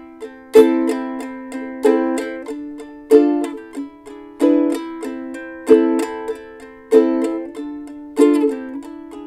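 Ukulele strummed with short down-strokes in a steady count of four, the third stroke of each bar hit harder: a loud accented strum about every 1.25 seconds with light strokes between. The strum runs through the chords Am, Dm, E7 and F.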